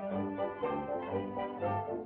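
Orchestral cartoon score from an early sound-era soundtrack: strings play a bouncy tune over a bass note struck about twice a second.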